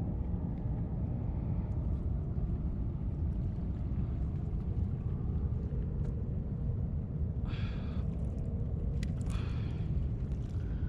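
Steady low rumble of wind buffeting the microphone. Two brief higher-pitched sounds come near the end.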